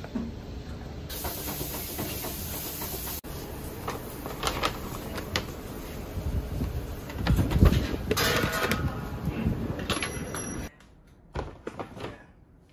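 Steady street-traffic rumble while a paper takeout bag rustles and crinkles, loudest a little past halfway. Near the end the sound drops to a quiet room, with a few short knocks as the bag stands on a table.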